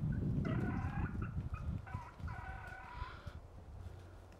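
Merriam's wild turkey gobbling twice, each gobble about a second long, over a low rumble that fades away.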